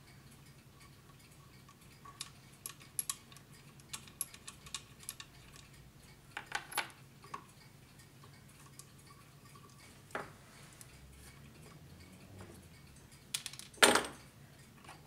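Scattered small metallic clicks and taps from tools and fingers working the brass movement of a fusee bracket clock while its spring setup is let down. There is a small cluster of clicks about two-thirds of the way through and a louder knock near the end.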